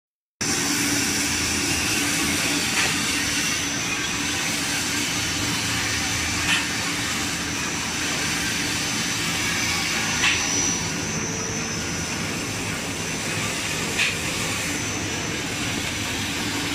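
Automatic jumbo roll tissue cutting and packing line running: a steady machine drone with a thin high whine, and a brief sharp sound about every four seconds.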